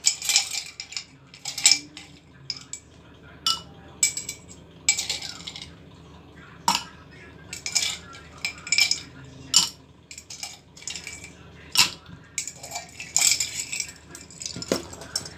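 Ice cubes clinking against glass as they are taken from a glass jar and dropped into a tall drinking glass: an irregular string of sharp clinks and short rattles, about one a second, some in quick clusters.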